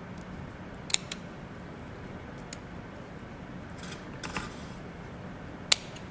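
Small dissecting scissors snipping along the side of a narrow-clawed crayfish's tail shell. A few sharp snips come about a second in, a brief crunching cut about four seconds in, and the loudest snip near the end, over a faint steady low hum.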